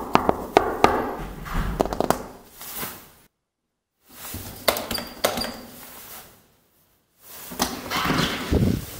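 A quick run of sharp knocks and clicks, then a few more between two short stretches of dead silence where the recording is cut, and a rustling noise near the end.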